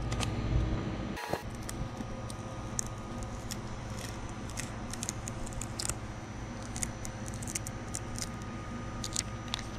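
Clear transfer tape of a vinyl decal being rubbed down and peeled off a plastic kayak hull: scattered light crackling and clicking of the film under the fingers, over a steady low hum.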